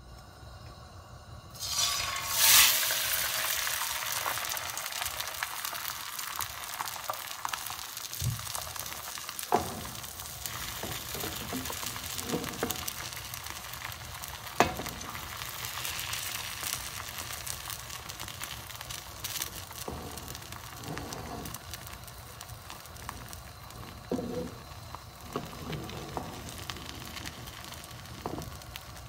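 Beaten eggs frying in oil in a nonstick pan as a thin omelette: a loud burst of sizzling about two and a half seconds in, then steady sizzling with a few small clicks.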